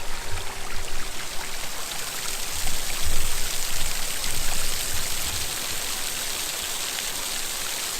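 Steady rushing of the Sgwd Clun-Gwyn waterfall, its falling water making an even hiss across the whole range, with some low rumbling bumps through the first half. The falls look to be running low after little rain.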